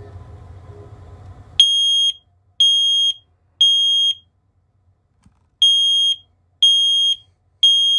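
Hardwired smoke alarm sounding on test in the temporal-three pattern: three loud high-pitched beeps about a second apart, a short pause, then three more. No other linked alarms join in, showing that the unit has been removed from the wireless interconnect.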